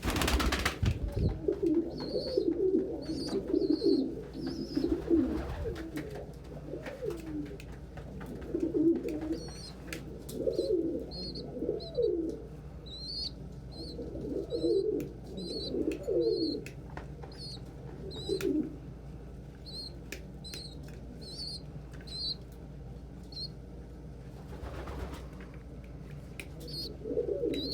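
Pigeons cooing, low warbling coos coming in clusters every second or two, with short high chirps repeating throughout and a few brief wing-flap sounds.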